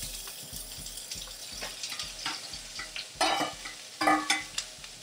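Onion sizzling in hot oil in a pot, stirred with a utensil that scrapes against the pan, with louder scrapes about three and four seconds in.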